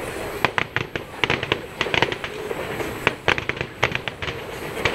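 Fireworks display: an irregular run of sharp pops and bangs, some coming in quick clusters, from aerial shells bursting.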